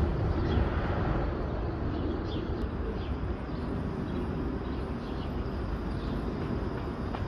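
City street ambience: a steady low rumble of traffic, with a few faint short chirps from birds.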